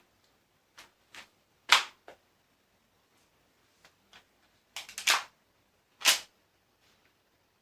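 Tokyo Marui MP7A1 gas blowback airsoft gun firing single shots. Each shot is a sharp crack of the gas blowback action; the loudest come about two seconds in, in a quick burst of three around five seconds, and once more near the end, with fainter clicks between.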